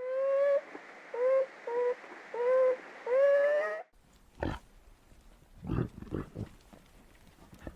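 Animal calls: a run of five short, clear, pitched calls, the first and last drawn out and rising. About four seconds in, these give way to a series of low, rough grunts.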